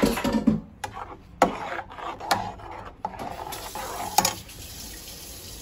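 Wooden spoon stirring blended daal in a pot, knocking and scraping against the pan several times.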